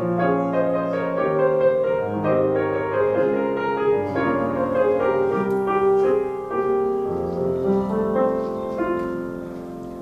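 Grand piano playing a solo instrumental passage of held chords and melody, growing softer over the last couple of seconds.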